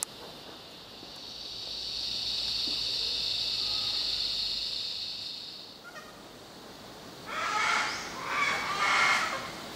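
A high, steady insect drone swells and fades over about five seconds. Then, from about seven seconds in, loud bird calls come in rapid, pulsing phrases, louder than the drone.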